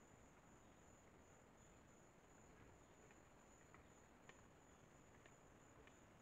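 Near silence: a faint, steady high-pitched insect trill of the night forest, with a few faint clicks a few seconds in.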